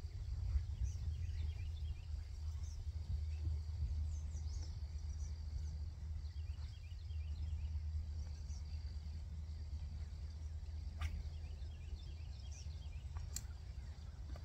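Outdoor ambience of songbirds chirping in short repeated phrases, with a high steady trill for several seconds in the middle, over a low steady rumble. Two sharp clicks come near the end.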